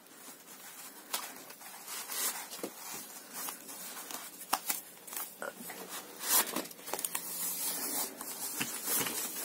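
Rustling and crinkling of packaging as a keyboard is taken out of its protective wrapping, with scattered small clicks and knocks.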